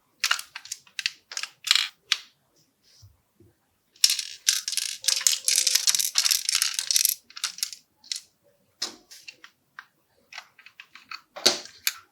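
Plastic LEGO puzzle box parts being handled and moved: a string of sharp clicks and knocks, with a dense rattling clatter from about four to seven seconds in.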